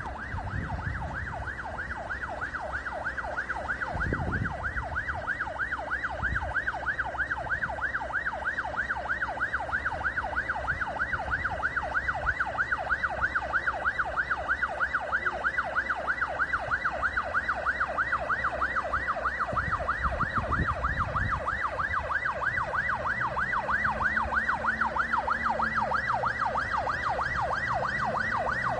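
Emergency-vehicle siren in a fast yelp, its pitch sweeping rapidly up and down several times a second without a break.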